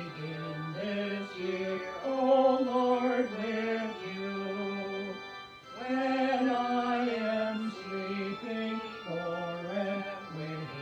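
A hymn: a slow melody moving in held notes, with singing.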